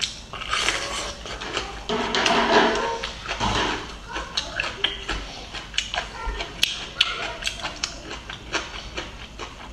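Close-up eating sounds of a bamboo shoot: a crisp bite, then chewing with many sharp, irregular crunching clicks.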